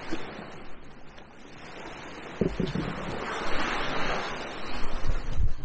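Sea surf washing against rocky cliffs, with wind buffeting the microphone. The gusts set in about halfway through, and the wash of the surf swells around the middle.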